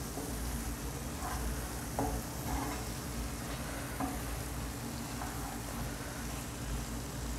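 Chicken liver fry sizzling in a stainless steel pan while a wooden spatula stirs it, with several short scrapes of the spatula against the pan.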